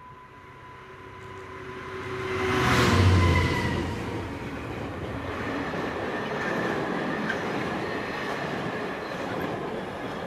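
Class 66 diesel locomotive approaching and passing at speed, loudest about three seconds in. Then comes the steady rolling noise of an intermodal train's container flat wagons going by, with a faint high ringing from the wheels and rails.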